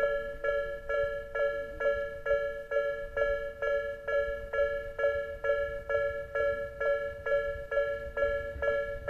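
Japanese level-crossing alarm bell ringing in a steady rhythm, about two two-tone dings a second, warning that a train is coming. A low rumble builds faintly near the end.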